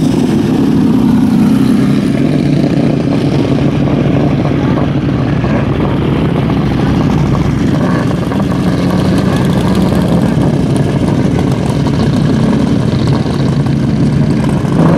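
Lamborghini Diablo SE30 Jota's 5.7-litre V12 running loud and steady at low revs through its open exhaust as the car rolls slowly along.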